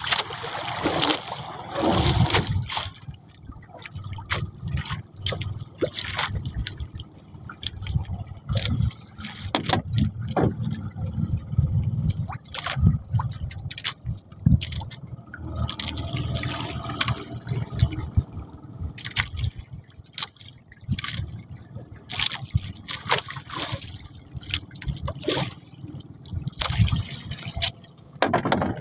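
Sea water splashing and trickling against a small fishing boat, with irregular knocks and clicks.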